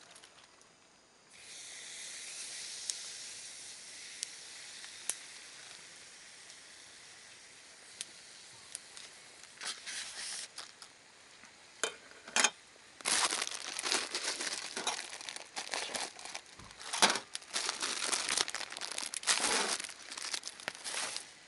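Food sizzling on a hot cooking surface, starting suddenly about a second in and slowly dying down, with a few sharp pops. In the second half it gives way to irregular crinkling and rustling.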